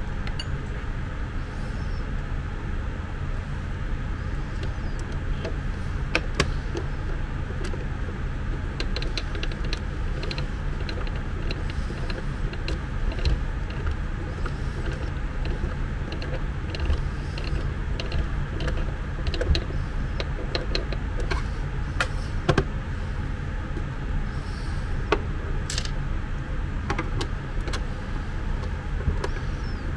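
Scattered small clicks, taps and scrapes of a screwdriver and screws as screws are driven into the plastic case of a portable suction aspirator, over a steady low hum.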